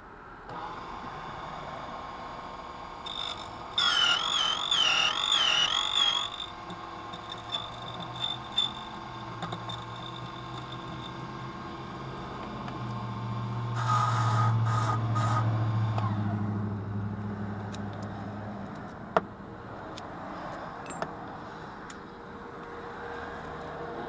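Small clicks and scrapes of a key blank being clamped into a key-cutting machine's vise, over a steady background hum. A warbling tone sounds for about two seconds a few seconds in, and a low rumble swells and fades about halfway through.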